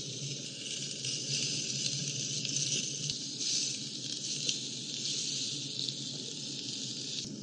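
Spanish mackerel pieces sizzling steadily on a hot carbon-graphite grill plate over a gas flame, with small crackles throughout.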